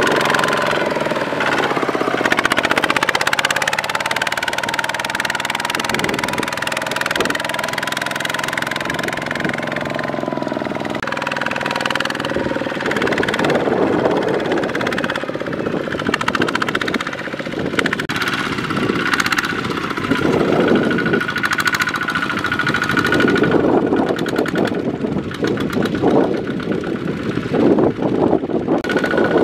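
Single-cylinder diesel engine of a Kubota two-wheel walking tractor (RT140), a fast, steady chugging as it works under load pulling a trailer loaded with rice sacks through deep mud. Its note shifts now and then.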